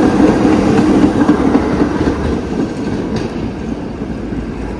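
A city transit vehicle running at speed: steady ride noise with no pauses, a little louder in the first couple of seconds.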